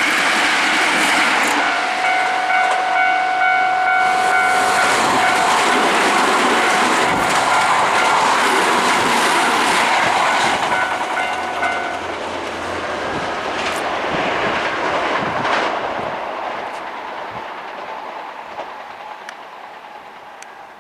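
Hankyu Kyoto Line electric train passing close by at a level crossing, its wheels clattering over the rails. A steady ringing tone sounds over it and stops about twelve seconds in. The train noise then dies away.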